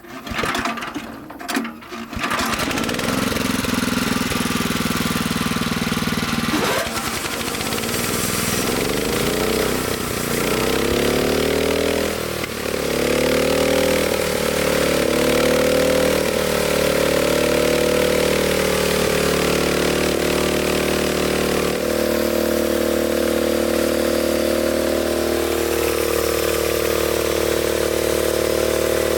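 Small engine on a homemade band sawmill starting up: a few knocks, then it catches about two seconds in, is revved up several times, and settles into steady running that shifts in pitch near the end.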